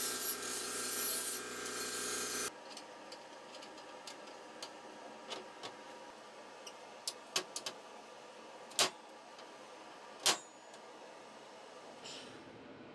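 Angle grinder with a sanding disc running against a steel square tube, with a motor whine and a high scraping screech, cutting off abruptly about two and a half seconds in. After that, a few sharp clicks and taps of the metal burner tube and fittings being handled on a steel bench, two louder ones near the end.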